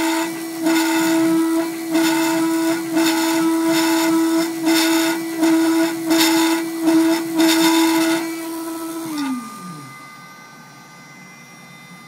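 Gravograph IS400 engraving machine cutting two-layer plastic: the spindle whines at a steady pitch while the cutter cuts in short noisy bursts, a bit more than one a second. About nine seconds in, the cutting stops and the spindle whine falls in pitch as it spins down.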